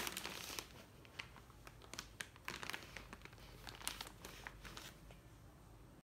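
Clear plastic product bag crinkling in short, scattered crackles as it is handled, thinning out near the end.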